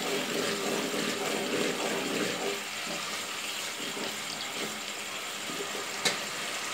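Water boiling in a pot of fried onions on a gas stove, a steady bubbling hiss. A single sharp click about six seconds in.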